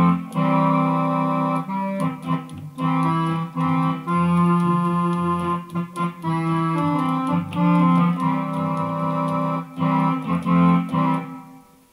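Roland FR-1x digital accordion playing a short passage of sustained chords and melody over a steady bass on its user program 4A voice, a much richer sound than the default accordion. The notes change in steps and stop just before the end.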